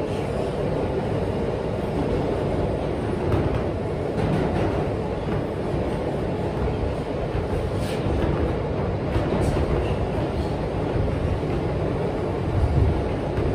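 New York City subway car (G train) running, heard from inside the car: a steady low rumble of wheels on the rails, with a few sharp clicks partway through and a heavier thump near the end.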